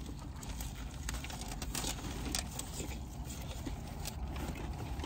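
Scattered light clicks and rustles of people biting into and handling food, over a steady low hum of a vehicle idling.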